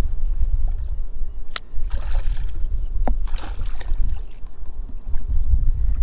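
Wind rumbling on the microphone while a hooked bass is being fought. A sharp click comes about a second and a half in, and two short rushes of splashing water follow about two and three and a half seconds in.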